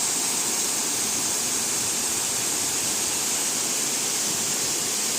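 Steady rushing of a mountain stream, an even hiss of running water with no breaks.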